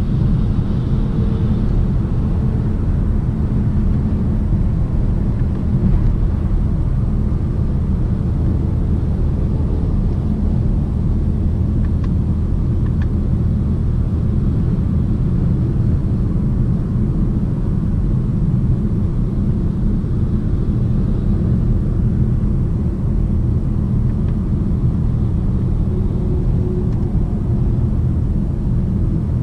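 Steady low rumble of a BMW 750d xDrive heard from inside its cabin while cruising at motorway speed: tyre, road and wind noise over its quad-turbo diesel straight-six, with no change in pitch. Two faint ticks come a little before halfway.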